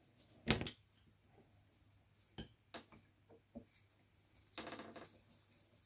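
Hand tools handled on a workbench: one sharp knock about half a second in, then a few faint clicks and a brief scrape as a screwdriver is set into a float-bowl screw on a Suzuki GT750 carburettor.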